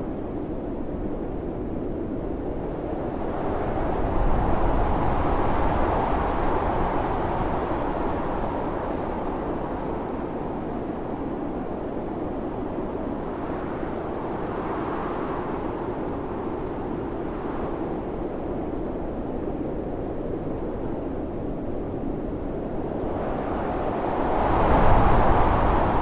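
Blizzard wind howling: a steady rush of noise that swells into a strong gust about four seconds in, eases off, and gusts again near the end.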